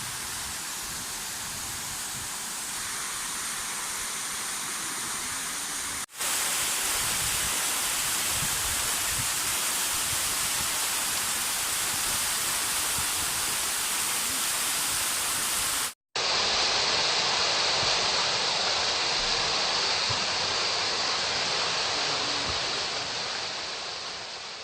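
Waterfall: a steady rush of falling water, broken by two abrupt momentary dropouts about 6 and 16 seconds in, and fading out at the end.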